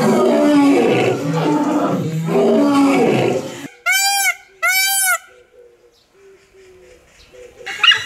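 Lions roaring in deep, repeated calls that stop abruptly after about three and a half seconds. Then an Indian peafowl (peacock) gives two loud calls about half a second apart, each rising then falling in pitch. Right at the end a white-tailed eagle begins a rapid run of yelping calls.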